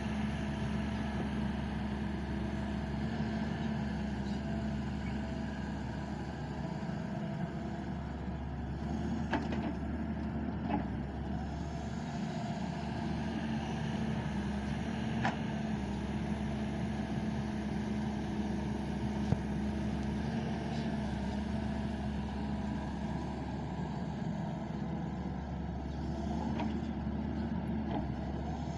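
Heavy diesel engine of a Doosan excavator running steadily under work while loading mud, with a few short metallic clanks.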